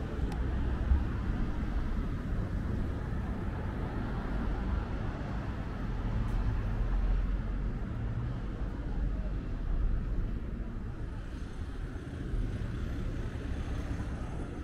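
Road traffic: cars driving past on the roadway beside the footway, a steady low rumble of engines and tyres that swells a few times as vehicles go by.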